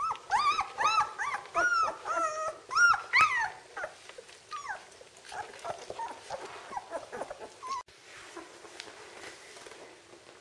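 Two-week-old Czechoslovakian wolfdog puppies whining and squealing: a quick run of loud, high, arched cries over the first three seconds or so, then fainter, scattered whimpers. The sound drops suddenly near eight seconds.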